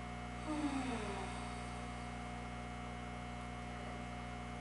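Steady electrical mains hum with several steady overtones. About half a second in, a brief sound slides down in pitch for well under a second.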